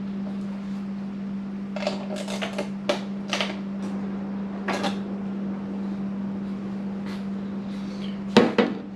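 Irregular clicks and clatter of a 10 mm ratchet and loose parts as the mirror bolts are taken off a motorcycle fairing, with a louder clatter near the end. A steady hum runs underneath.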